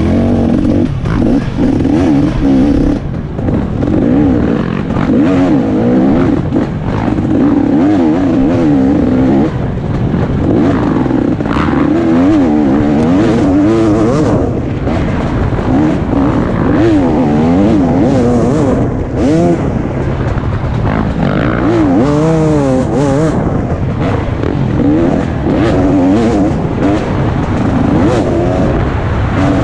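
2017 KTM 250 XC-W two-stroke dirt bike engine ridden hard, its revs rising and falling over and over as the throttle is worked on and off, with frequent knocks and clatter from the bike over bumps.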